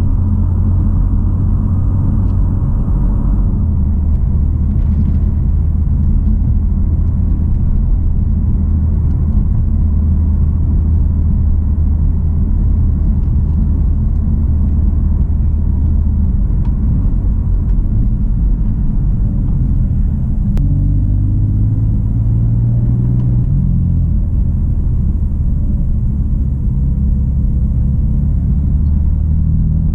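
BMW F80 M3's twin-turbo 3.0-litre inline-six running at low, steady revs while driving. About two-thirds of the way through, the engine note rises for a few seconds, then drops back.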